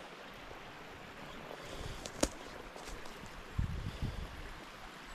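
Steady rush of a small mountain brook's running water, with one sharp click about two seconds in and a few dull low bumps a little later.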